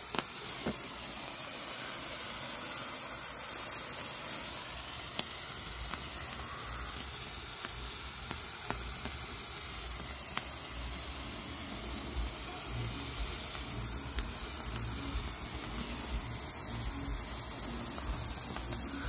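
Hand-held sparkler burning with a steady fizzing hiss, with a few sharp crackles from the spark shower.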